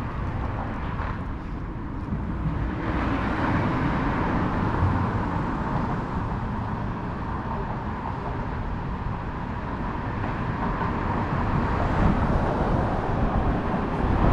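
Steady road traffic noise from the bridges overhead, a continuous roar that grows fuller about three seconds in.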